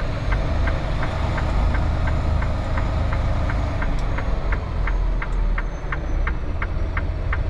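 Semi truck's diesel engine running at low speed, heard from inside the cab. Over it, a steady ticking at about three ticks a second.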